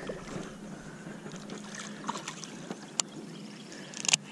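Faint steady hum of the boat's electric trolling motor, with a single sharp tick about three seconds in and a brief rattle of clicks near the end.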